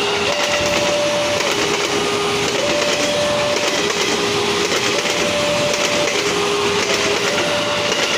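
JR 205 series electric commuter train passing close by, its wheels on the rails making a steady loud rush. Over it a level-crossing warning alarm alternates between a high and a low tone, each held about a second.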